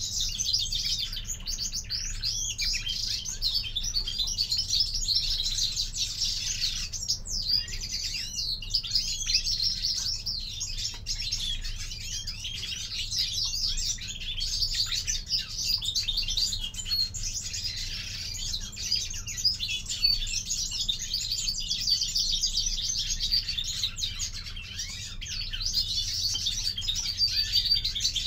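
Caged European greenfinches chirping and twittering continuously, many short high calls overlapping with no pause.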